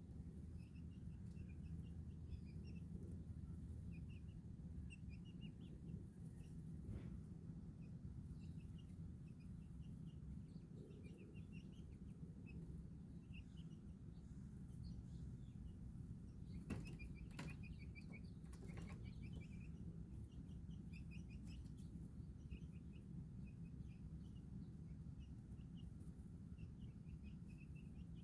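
Baby chicks peeping, a steady scatter of short, high chirps over a low, steady hum, with a few sharp clicks about seven seconds in and a cluster of them about seventeen to nineteen seconds in.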